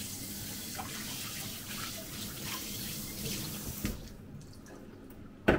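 Kitchen tap running into a stainless steel sink while things are rinsed. The water shuts off abruptly about four seconds in, and a sharp knock follows near the end.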